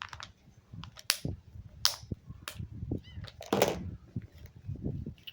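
Small items being handled and rummaged out of a bag pocket: a string of sharp clicks and brief rustles, the loudest about a second in, near two seconds, and a longer rustle past three and a half seconds.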